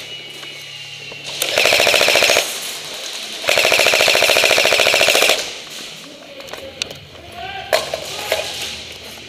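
Airsoft gun firing on full auto in two rapid bursts, a short one under a second and then a longer one of about two seconds.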